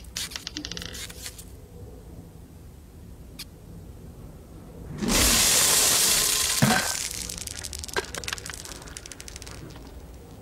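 Animated sound effect of a flood of small red berries pouring down and rattling onto a wooden floor: a sudden loud rush about halfway in, thick with rapid patters and a knock, that thins into scattered ticks and dies away. Before it, a few small ticks of a single berry dropping and bouncing.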